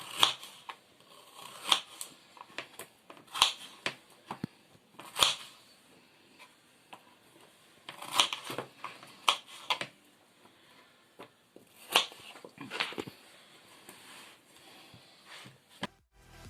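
Irregular sharp knocks and clicks of objects being handled, roughly one every second or two, in a small room.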